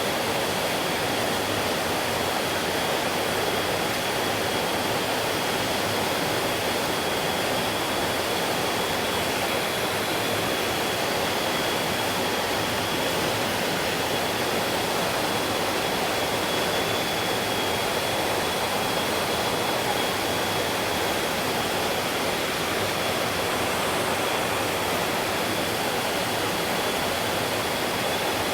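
Mountain stream rushing steadily over rocks, a dense, even sound of running water with a thin steady high tone over it.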